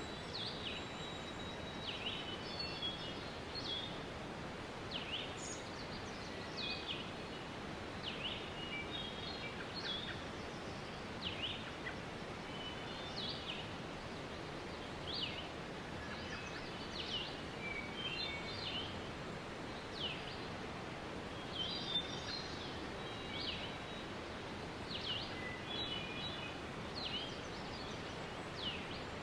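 Steady rushing of a waterfall with small birds chirping over it: short, sharp down-sweeping notes and little chirp clusters repeated every second or so.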